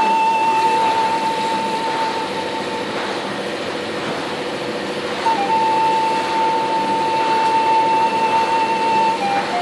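Background music: long held high notes, with short stepping notes between them, over a steady noise.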